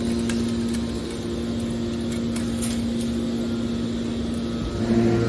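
A steady machine hum holding one constant pitch over a low rumble.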